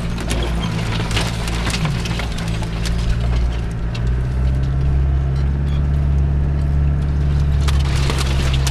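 Land Rover Discovery's 200Tdi four-cylinder turbo-diesel running at low speed while hedge branches scrape, crackle and snap against the bodywork and windscreen. The crackling is thickest in the first few seconds and returns near the end, and the engine grows steadier and a little louder from about halfway through.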